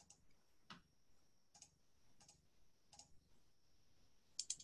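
Near silence with faint, scattered clicks, roughly one every 0.7 s, then a quick flurry of several near the end: computer clicks while screen sharing is being set up. A faint steady high whine sits underneath.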